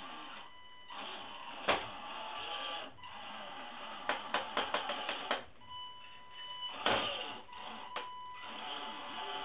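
Tamiya Tundra High-Lift RC truck's 19-turn brushed electric motor and gearbox whirring in short throttle bursts as it crawls over weight plates, the pitch rising and falling. A sharp knock twice, and a quick run of clicks in the middle as tyres and chassis strike the plates.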